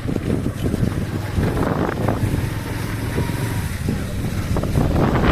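A road vehicle running along with a steady low rumble, with wind buffeting the microphone.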